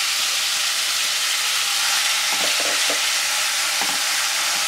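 Marinated chicken pieces in a yogurt-and-cream sauce sizzling steadily in a lightly oiled nonstick frying pan. A silicone spatula stirs them, giving a few brief scrapes about halfway through and again near the end.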